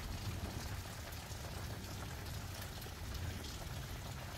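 Steady rain falling and pattering on the ground, an even hiss of water with a low rumble underneath.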